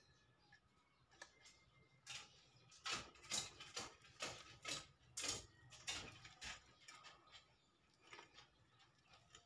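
Light metallic clicks and scrapes as a short piece of sheet-metal furring channel is squeezed and bent inward by hand over a PVC insert. The clicks bunch together between about two and seven seconds in.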